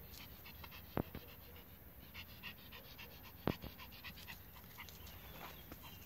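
Small dog panting quickly, a fast run of short breaths. Two sharp knocks stand out, one about a second in and one near the middle.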